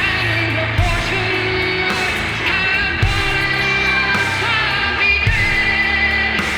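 Rock music with a singing voice, guitars and a steady beat.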